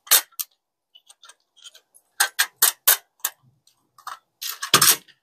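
Parts of a rotating jewelry organizer being handled and pushed together: a run of sharp clicks and taps, four in quick succession a little past two seconds in, and a louder clatter near the end.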